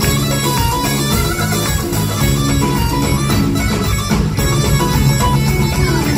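Live band music played on stage, with hand drums keeping a steady beat under a sustained melodic line.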